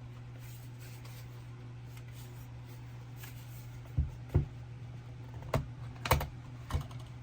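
A few sharp clicks and taps, about five over three seconds, starting about four seconds in, over a steady low hum.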